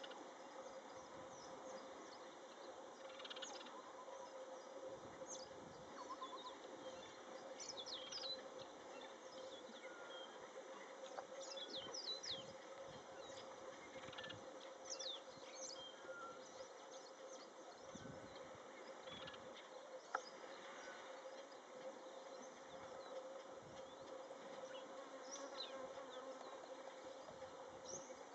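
Faint bush ambience: a steady, unchanging buzzing drone, with short high bird chirps scattered throughout. A single sharp click comes about twenty seconds in.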